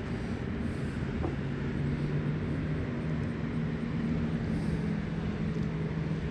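Steady low drone of distant motor vehicle noise, with a couple of humming tones that drift slightly in pitch.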